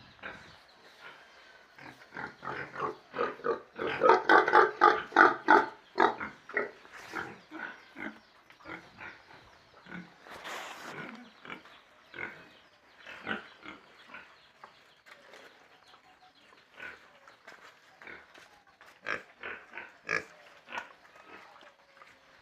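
Pigs grunting and squealing in quick, short calls, loudest and most rapid between about four and six seconds in, with a brief noisy rustle around ten seconds.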